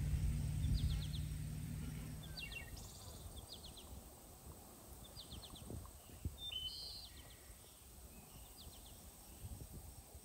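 Small birds chirping in short rapid trills, repeated every second or so, over a low steady hum that fades away in the first two or three seconds. A couple of faint knocks come near the middle.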